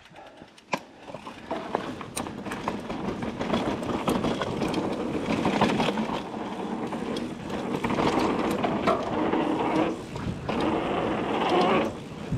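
Mountain bike riding down a dirt trail: knobbly tyres rolling and the bike rattling, the noise building over the first few seconds as it picks up speed, with a sharp click just under a second in and two short drops in the noise near the end.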